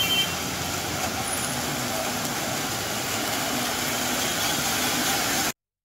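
Road traffic on a flooded street: cars and motorbikes driving through standing water, a steady watery hiss with engine noise. It cuts off suddenly near the end.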